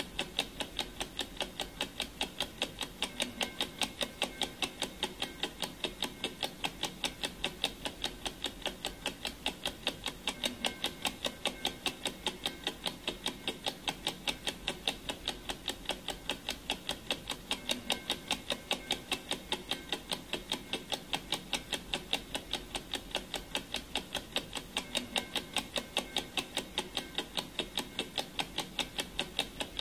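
Clock ticking steadily, an even run of sharp ticks a few times a second that goes on without a break.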